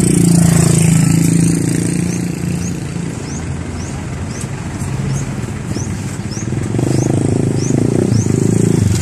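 Vehicle engine running as it drives along the road, a steady low drone that grows louder near the end. A faint high chirp repeats about twice a second through the second half.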